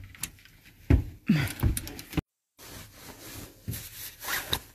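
Knocks and thuds of a wooden camper bathroom door and its lever handle being handled and opened, with phone-handling noise. The sound cuts out completely for a moment near the middle.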